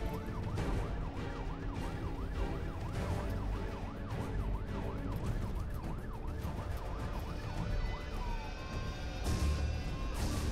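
Emergency vehicle's electronic siren sounding from the vehicle being driven, over its engine and road rumble. It runs as a fast yelp, about three rises and falls a second, then switches near the end to a two-tone hi-lo before going back to a slow wail.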